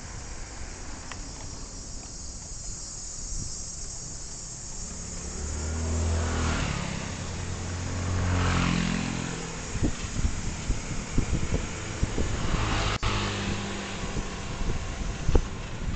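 Motor vehicle engine rising in pitch as it accelerates, swelling about five seconds in and again near the end, over steady road and wind noise. A single sharp click just after thirteen seconds.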